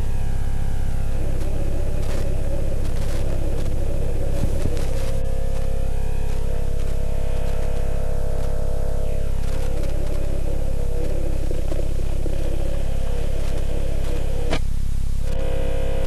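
Droning, ominous background music over a heavy, steady low hum, with a few crackles of static.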